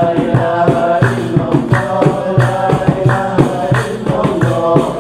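Devotional Islamic chant (inshad): a man's singing over a large frame drum beaten in a steady rhythm.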